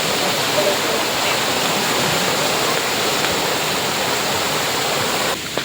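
Steady rush of flowing water from a hot spring's stream. Near the end it drops suddenly to a quieter rush.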